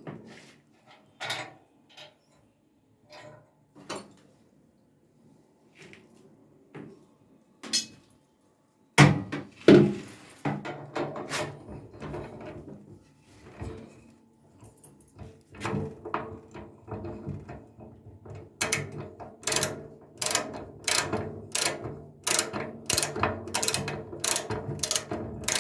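Hand tools working on a Zanussi automatic washing machine during a bearing replacement: scattered sharp metal clicks at first, then busier metal-on-metal knocking, with sharp knocks coming about two a second near the end.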